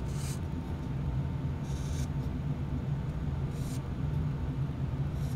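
Felt-tip marker scratching in three short strokes on a steel fixed-blade broadhead, over a steady low hum.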